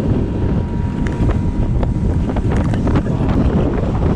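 Heavy wind rumble on the microphone as a fishing boat runs at speed over choppy water, with short splashes of spray off the hull.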